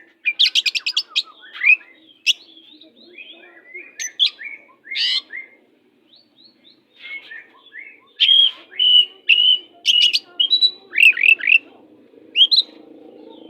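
Oriental magpie-robin (kacer) singing a fast, varied song of whistled notes, chirps and rapid trills, in bursts separated by short pauses.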